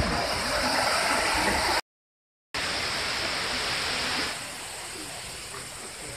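A steady rushing of running water. It cuts out completely for under a second about two seconds in, then comes back and turns quieter about four seconds in.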